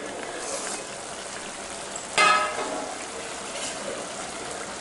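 Chicken curry sizzling and simmering in a kadai under a steel plate lid, a steady hiss. About two seconds in comes a sharp metallic clank of the plate lid that rings briefly.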